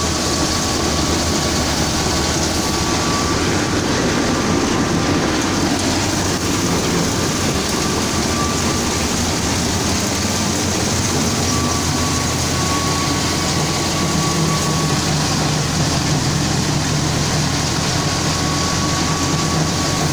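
Tractor-driven wheat thresher running steadily as wheat sheaves are fed in: a loud, unbroken mechanical din with the tractor's engine beneath it and a thin steady whine.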